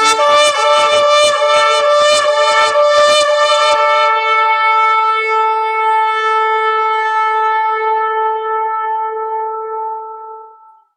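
Shofar (ram's horn) being blown: a quick run of broken, pulsing notes for the first three and a half seconds, then one long held note that fades out near the end.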